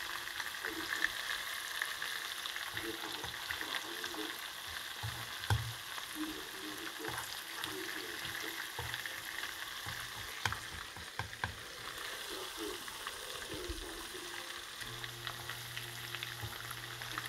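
Battered food deep-frying in hot oil in a deep pan: a steady sizzling crackle with scattered pops.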